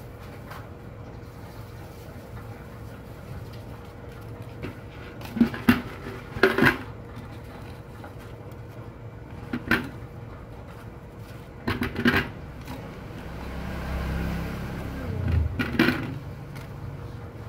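Sharp knocks and clacks of a large plastic jar and its lid being handled while banknotes are pushed into it, in about five separate bursts, over a steady background hum. A low rumble swells and fades about two thirds of the way through.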